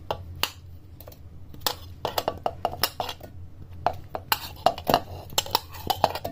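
Onion pieces dropping into a stainless steel mixer-grinder jar, with a scattered run of knocks and clinks against the metal that grows thicker after the first couple of seconds. A low steady hum runs underneath.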